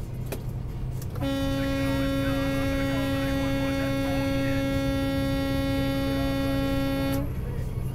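Steady low drone in a truck cab; about a second in, a single long horn tone at one steady pitch starts and is held for about six seconds before cutting off.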